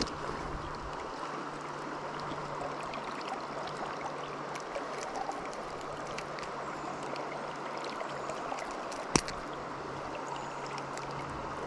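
River water running over rocks in a steady rush, with a single sharp click about nine seconds in.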